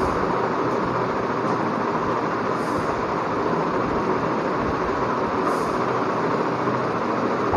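A steady, even rushing noise with no speech, with a faint soft swish about every three seconds.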